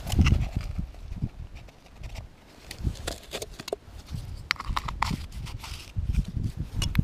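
Strong wind buffeting the microphone, with scattered clicks and knocks of handling on the ice, thickest about three to five seconds in.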